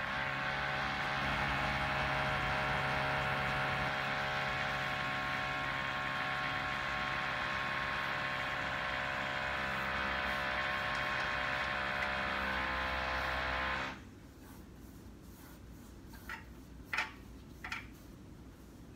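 A machine runs with a steady, even drone for about fourteen seconds, then cuts off suddenly. A few light taps follow near the end.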